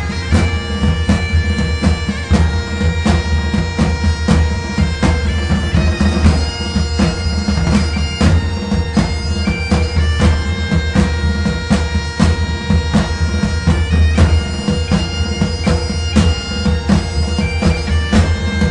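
Background music with sustained, droning tones over a steady drum beat.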